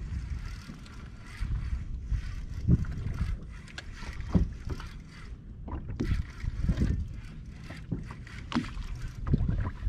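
Water lapping and slapping against a small boat's hull, with a low uneven rumble of wind on the microphone and a few irregular knocks against the boat.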